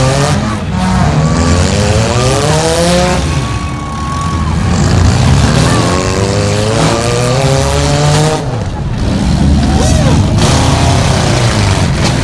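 Demolition derby cars' engines revving hard again and again, each rev rising in pitch over a second or two as the cars accelerate across the dirt arena, with tyres spinning and scrubbing.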